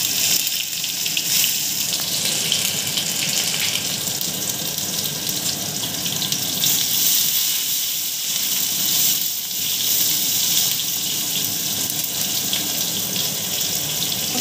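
Chopped tomato and green chillies sizzling in hot vegetable oil in a kadai while being stirred, a steady hiss.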